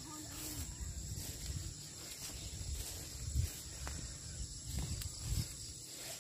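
Rural outdoor ambience: a steady high insect trill, like crickets, runs throughout. A few low thumps come about three and a half seconds in and again near the end.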